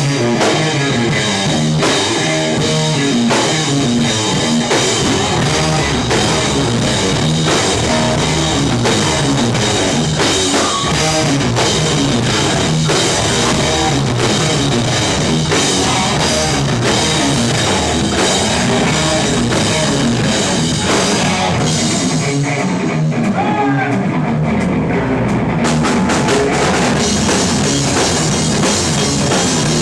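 Rock band playing live, with a drum kit and electric guitars. About three-quarters of the way in, the cymbals and drums drop out for roughly three seconds, then the full band comes back in.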